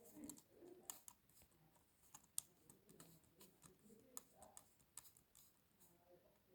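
Faint, irregular clicks and light taps, a dozen or so spread unevenly, the sharpest about two and a half seconds in.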